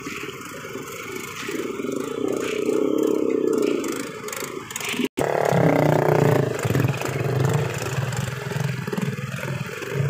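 Small motor scooter engines running and revving close by as riders edge through a packed crowd. The sound cuts out for an instant about halfway through.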